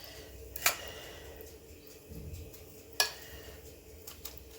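Two sharp clinks of kitchen utensils against dishes, a little over two seconds apart, then a few faint ticks.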